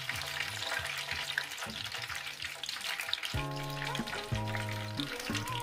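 Hot cooking oil sizzling steadily in a frying pan, with soft background music whose notes come in louder a little past halfway.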